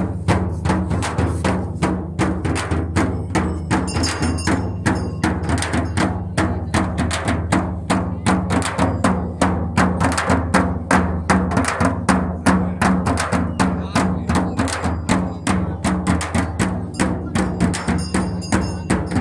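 Large frame drums beaten with sticks in a fast, even rhythm, about four strokes a second.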